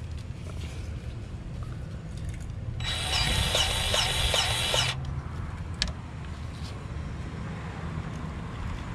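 A powered grease gun runs for about two seconds, a loud hiss with quick pulsing strokes, pumping grease into a steering-knuckle grease fitting. A low steady hum sits underneath, and a single sharp click comes about a second after the gun stops.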